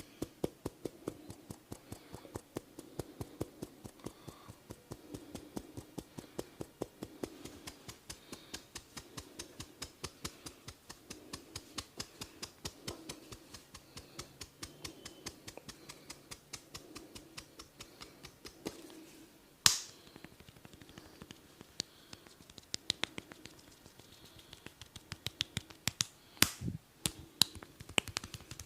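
A barber's head massage giving a fast, even run of clicking taps, several a second, then sparser and sharper cracks, one loud crack about two-thirds through and a heavier thump near the end.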